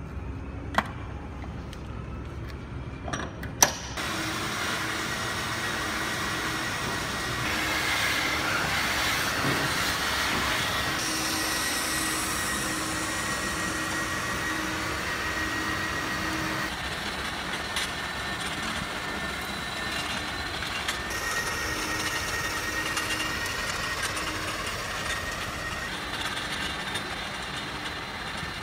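Comzu F3313 industrial vacuum cleaner running steadily, sucking up fine white powder through its hose and floor nozzle. Two sharp knocks come in the first few seconds, and the steady suction noise comes in about four seconds in.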